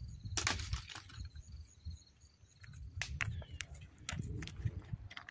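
Insects chirping in short, evenly repeated trills through the first half, over scattered sharp cracks and clicks and a low rumble.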